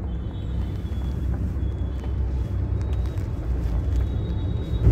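Taxi cab driving, heard from inside the cabin: a steady low rumble of engine and road noise.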